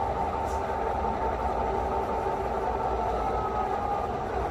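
Model diesel locomotive's sound system giving a steady diesel engine rumble with a constant hum.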